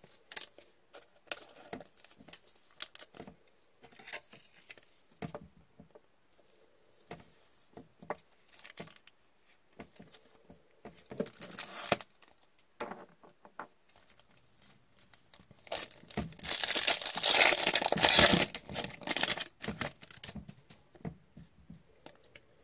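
Gloved hands handling trading cards with small clicks and rustles, then a loud crinkling and tearing of a shiny hockey-card pack wrapper being ripped open, lasting a few seconds in the second half.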